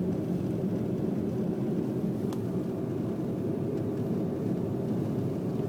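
Steady cabin noise of an Audi quattro driving on a snow-covered highway: engine and tyre rumble, even in level throughout.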